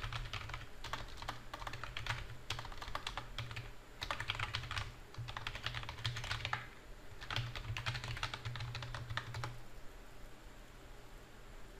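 Computer keyboard typing in several quick runs of keystrokes with short pauses between them. The typing stops about three-quarters of the way through.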